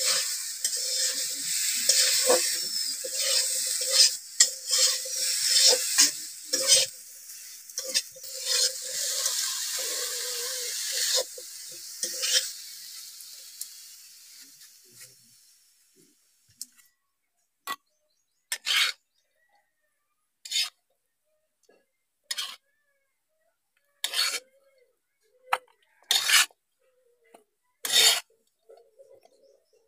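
Jackfruit pieces sizzling in hot oil in a metal kadai while a metal spatula scrapes and clinks against the pan as they are stirred. The sizzling fades away after about twelve seconds, leaving only separate short scrapes of the spatula every second or two.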